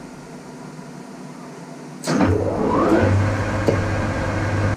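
Metal lathe started up about two seconds in: a sudden start, then a rising whine as the chuck spins up to speed, settling into a steady running hum.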